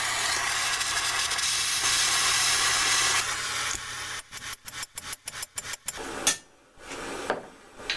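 Small propane torch burning with a steady hiss, then breaking into a rapid stutter of about five pulses a second and cutting out, with a couple of sharp clicks near the end.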